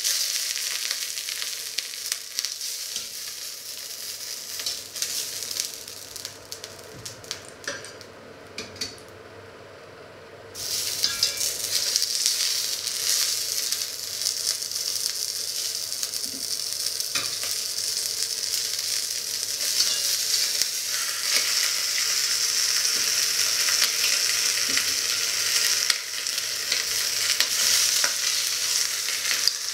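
Chicken pieces sizzling as they brown in hot fat in a pot, with small clicks of metal tongs. The sizzle dies down for a few seconds, then jumps back loud about ten seconds in as another piece is laid into the fat.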